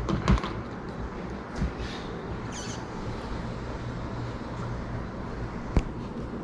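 Steady background hum with a few soft scrapes and light clicks, and one sharp click near the end: handling noise from vinyl wrap being tucked in along a car roof's edge.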